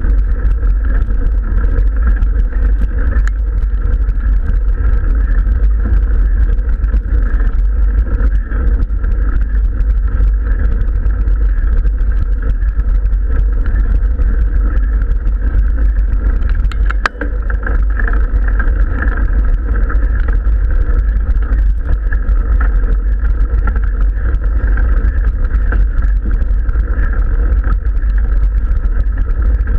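Steady, loud wind rumble on an action camera's microphone as a mountain bike climbs a gravel track, with a single sharp click about 17 seconds in.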